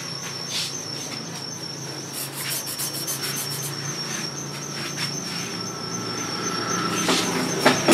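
Quiet background: a steady low hum and a faint steady high-pitched whine, with scattered light clicks and a few sharper clicks in the last second.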